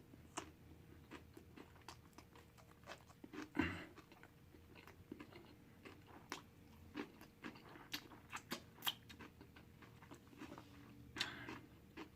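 Close-miked chewing and mouth sounds: irregular wet smacks and clicks of someone eating a cheeseburger, with a louder smack about three and a half seconds in and another cluster near the end.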